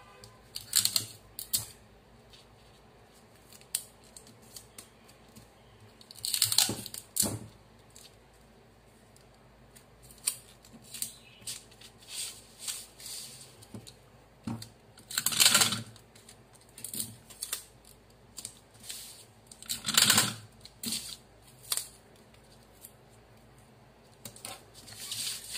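Paper being handled on a table: strips of paper laid down, smoothed and taped onto a paper sleeve pattern, with scattered soft taps and clicks. Louder swishes come about six, fifteen and twenty seconds in.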